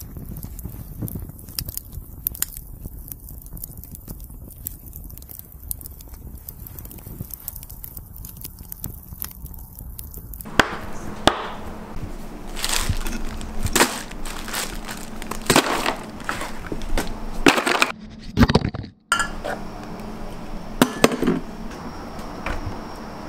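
Scattered sharp clinks and knocks, as of hard objects being handled, over a low background that changes abruptly twice.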